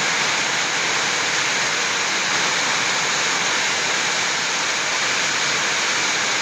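Heavy storm rain falling steadily, a dense, even hiss with no let-up.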